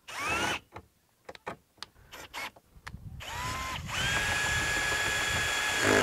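Hilti compact cordless drill/driver, its clutch set to 6, driving a screw into a truck's fender liner: a short rising whir at the start, a few light clicks, then a whir that rises about three seconds in, holds steady for about two seconds and stops sharply.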